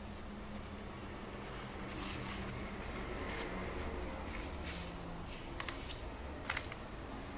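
Paper rustling and scraping as comic book pages are handled and turned, with a few sharper crinkles or taps, the strongest about two seconds in and again near the end.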